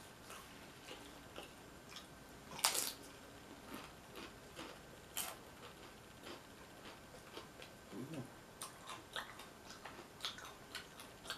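Close-miked chewing and biting of loaded tortilla chips (nachos), with scattered sharp crunches, the loudest about two and a half and five seconds in.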